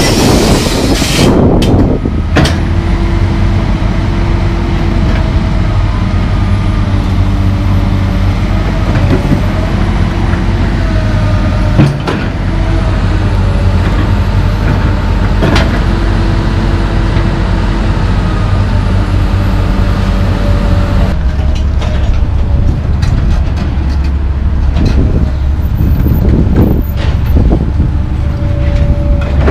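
Komatsu PC220LC track excavator's diesel engine running steadily under load, its hydraulic whine rising and falling as it works, with a few sharp knocks. A brief loud rush of noise at the very start, and a busier clatter over the last several seconds.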